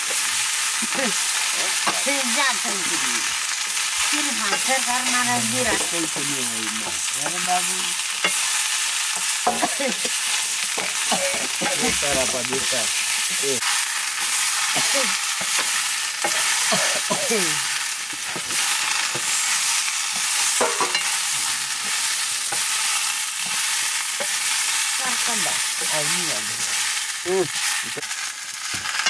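Sliced potatoes sizzling as they fry in a black iron kadai over a wood fire, a steady hiss, with the long-handled spatula stirring and scraping through them in the pan.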